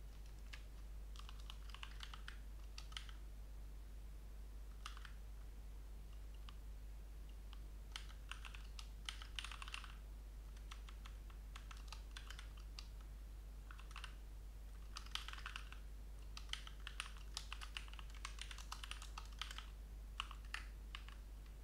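Typing on a computer keyboard: bursts of rapid keystrokes separated by pauses of a few seconds.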